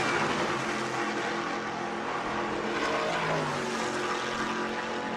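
Stadium Super Truck engine running, a steady drone that dips in pitch about three seconds in.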